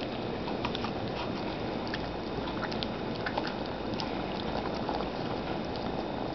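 Steady hiss with scattered soft clicks and taps as two dachshunds and a kitten play on a bed, close to the microphone.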